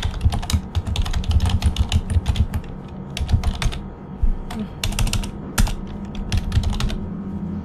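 Computer keyboard typing: a quick run of keystrokes through the first few seconds, then slower, scattered key presses.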